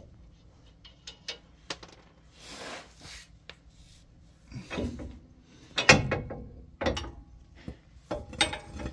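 Steel track bar being worked loose from its mount under a Ford F-250 and pulled free by hand: irregular metal clunks and knocks with some scraping. The loudest clank comes about six seconds in, and a cluster of ringing knocks comes near the end.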